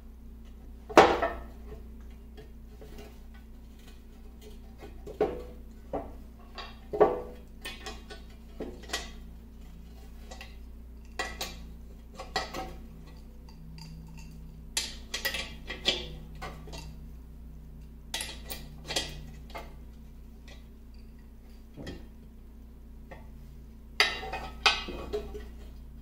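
Irregular metallic clinks and taps of a wrench and bolts against the cast-iron housing of a 1950 LeBlond Regal lathe as it is unbolted. The sharpest knock comes about a second in, with clusters of clinks near the middle and again near the end.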